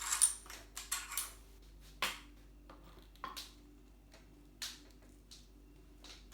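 Irregular metallic clicks and clinks of tools and small bike parts being handled, a dozen or so sharp knocks spaced unevenly.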